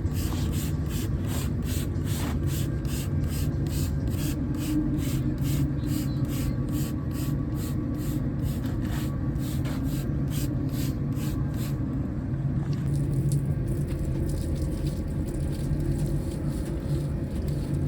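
Steady low rumble and wind noise of a ride, with a fast, even ticking about three times a second that stops about two-thirds of the way through.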